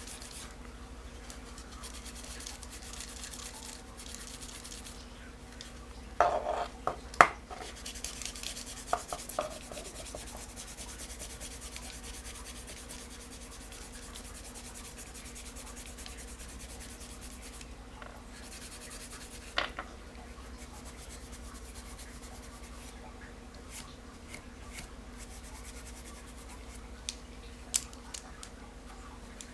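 Abrasive scuffing pad rubbing over the wooden handle knob of a spinning fishing reel: a faint, steady scrubbing. A few short knocks from handling the reel break in, the loudest cluster about six to seven seconds in.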